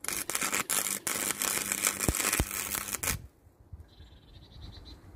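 MIG welder's arc crackling and sizzling as a short weld is laid, with a few brief breaks. It cuts off suddenly about three seconds in.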